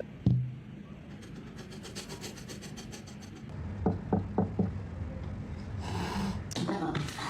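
Rapid scraping against a hard surface, with a knock at the start and three quick knocks about four seconds in.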